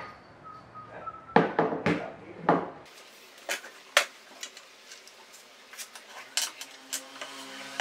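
Clattering knocks of an office chair's plastic and metal parts being handled and set down on a wooden desk during assembly: a cluster of loud knocks in the first three seconds, then scattered lighter clicks and taps.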